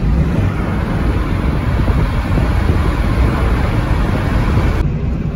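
1998 Chevrolet Corsa Wind driving at road speed, heard from inside the cabin: a steady low rumble of engine and tyres with wind noise. The upper hiss cuts off abruptly near the end while the rumble goes on.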